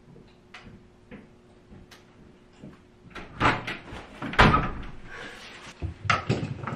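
A door knocking and bumping as someone comes in, with plastic grocery bags rustling and thudding; the loudest knock comes just past halfway. Before that, only a few faint clicks over a low hum.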